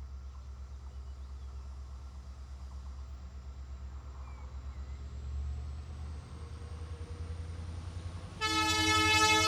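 EMD WDP4 diesel locomotive's two-stroke V16 engine running with a low, pulsing throb, then its horn blasts suddenly and loud about eight and a half seconds in, holding on.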